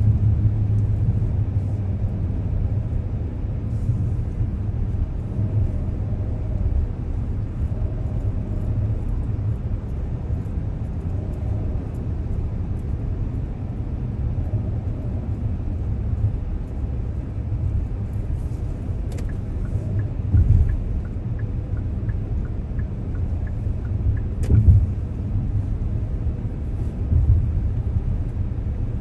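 Steady low rumble of a car's road and engine noise heard from inside the cabin while driving, with two brief thumps about two-thirds of the way through.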